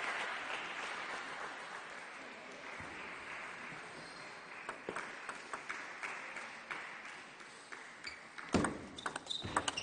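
Crowd applause dying away, then a table tennis ball tapping on the table a few times, and near the end a rally: quick sharp clicks of the ball off the paddles and table, the loudest a little past eight seconds in.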